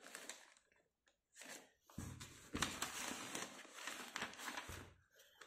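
Book packaging crinkling and rustling as it is handled and pulled open, in short spells: briefly at the start, again around a second and a half in, then for nearly three seconds.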